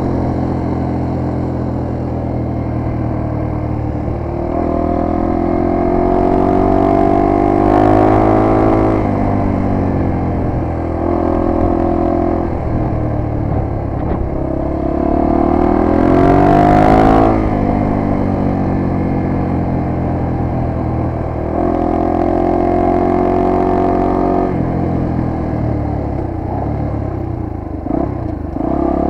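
1998 Honda XR250R's air-cooled single-cylinder four-stroke engine running under way, its pitch rising in several pulls under throttle and dropping back in between. The loudest pull comes about two-thirds of the way through.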